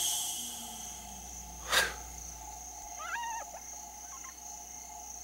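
Veldt soundscape with a steady insect drone. About two seconds in comes a short, sharp cry, the loudest sound, and about a second later a brief wavering animal call. The listeners hear it as a scream and take it for a hyena.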